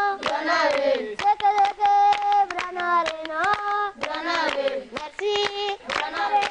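Children singing together with hand clapping, sustained sung notes broken by sharp claps.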